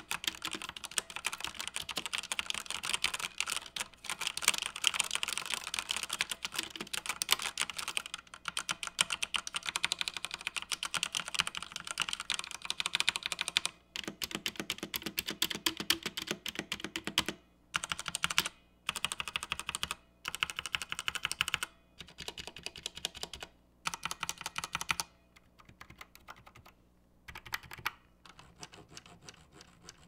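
Typing on a Redragon K596 Vishnu tenkeyless mechanical keyboard with Redragon red linear switches: fast, continuous keystrokes for about the first fourteen seconds, then short runs of presses broken by pauses, thinning to a few faint presses near the end.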